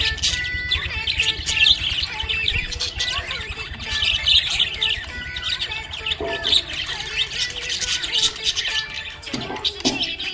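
Budgerigars chirping: a steady stream of short, overlapping high chirps with no break.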